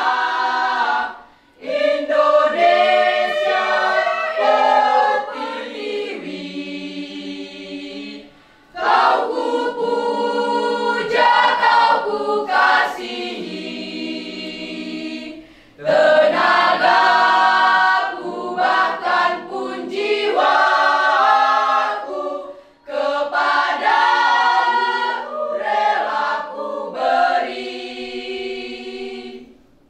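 Mixed choir of teenage girls and boys singing unaccompanied, in long phrases broken by short breaths about every seven seconds. The song ends just before the close.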